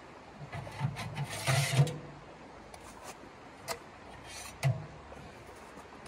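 Sheet-metal tent stove and its chimney pipe being handled and fitted: a string of light metal clanks and knocks, with a longer scrape about a second and a half in. A steady hiss of running creek water sits underneath.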